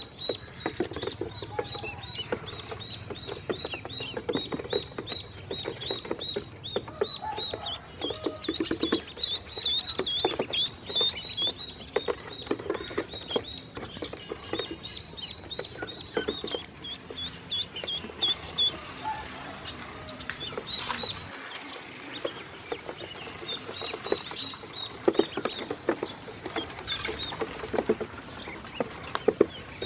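A group of ducklings peeping continuously in short, high, repeated calls, with quick tapping as they peck feed off a hard plastic surface.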